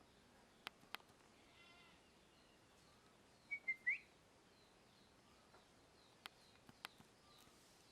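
Parrot giving a short whistled call, two or three quick chirps ending on a rising note, about halfway through. Otherwise near silence with a few faint clicks.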